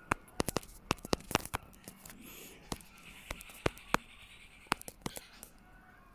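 Sharp, irregular clicks of typing on a smartphone's on-screen keyboard, in quick runs of keypresses with a short pause about two seconds in.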